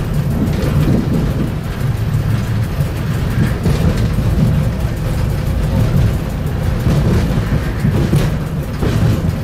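A train running along the track, heard from inside the driver's cab: a steady, loud low rumble of the running gear and engine on the rails.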